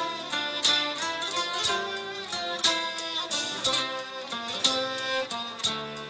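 Instrumental music with plucked string notes and a regular beat, sharp accents about once a second.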